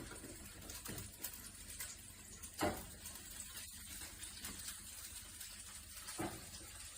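A few soft knocks and clicks from the grinder being handled, the loudest about two and a half seconds in, over a faint steady hiss.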